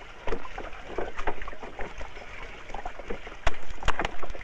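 Wet, irregular splashing and slapping of live eels squirming in a heap of water-soaked fish and net, with dripping water. Two sharper knocks stand out near the end.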